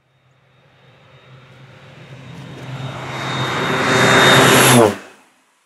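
Air Tractor 402B crop duster's Pratt & Whitney PT6A turboprop engine and propeller, growing steadily louder as the plane comes in low, with a steady high turbine whine. At its loudest, about five seconds in, the pitch drops as it passes over, then the sound cuts off suddenly.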